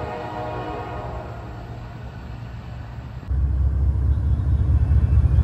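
A distant diesel locomotive approaching, with a steady humming tone that fades away. About three seconds in, this gives way abruptly to the loud, pulsing low rumble of a Wabtec diesel locomotive's engine close by at the platform.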